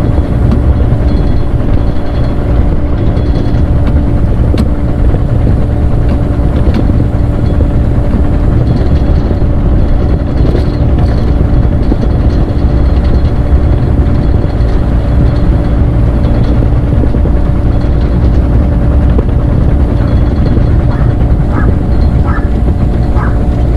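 Compact track excavator's diesel engine running steadily while digging, with a few short knocks near the end.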